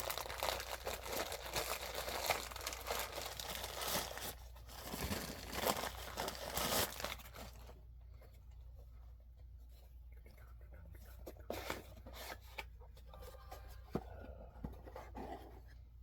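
Packaging being torn open and crinkled by hand for about eight seconds. It is followed by quieter handling with a few scattered light clicks.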